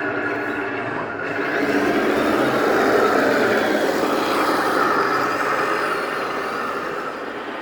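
A 1/14-scale RC truck running, its engine sound mixed with a motor whir. The sound grows louder about two seconds in, then eases off.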